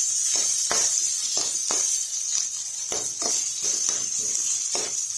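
Ginger, garlic and onion frying in oil in a pan with a steady sizzle, while a spatula stirs them in repeated scraping strokes, two or three a second.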